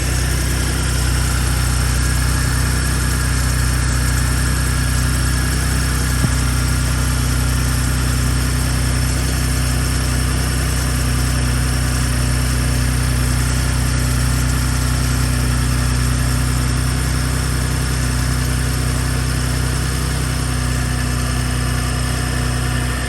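Gen2 Ford Raptor's 3.5-litre twin-turbo EcoBoost V6 idling steadily after a cold start, with a single click about six seconds in.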